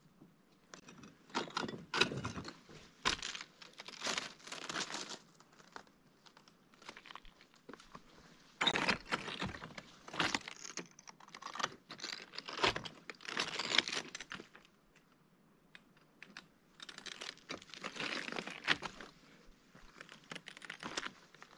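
Footsteps crunching and clattering over loose lava rock rubble, in irregular bunches of steps with two short pauses.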